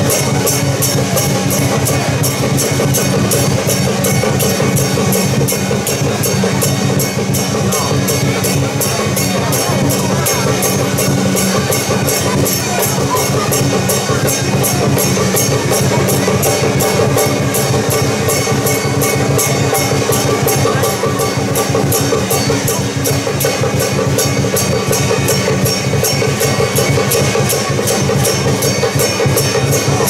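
Taiwanese temple-procession percussion of drums and cymbals beating a fast, steady rhythm, with steady held tones beneath.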